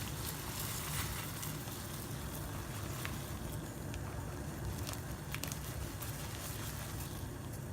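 A pot of water at the boil on the stove, a steady bubbling hiss over a low rumble, as dry white rice is poured into it, with a few faint ticks.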